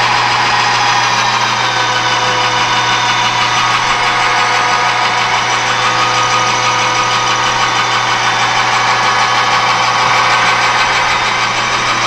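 Metal lathe running steadily while its tool takes a facing cut across the end of an aluminum coaster blank held in the chuck's soft jaws.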